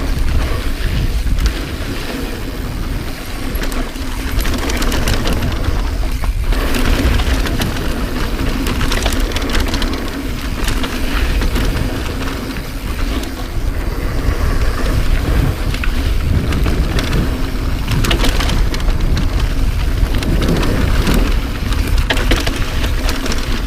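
Wind rushing over the camera microphone as a Santa Cruz 5010 mountain bike speeds down a dirt trail, with tyres rolling over dirt and rocks and a constant patter of clicks and rattles from the bike.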